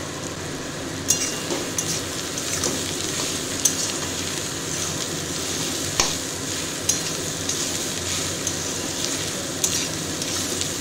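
Shredded vegetables and soya chunks sizzling in oil in a steel kadai as a metal spatula stirs them, with scattered clicks and scrapes of the spatula against the pan.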